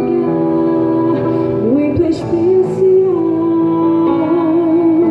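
Live worship band playing with a singer; steady sustained chords under a sung line that glides up and then holds one long note with vibrato.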